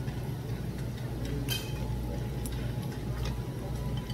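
A steady low hum of room machinery, with three light clinks of a utensil against tableware about a second apart.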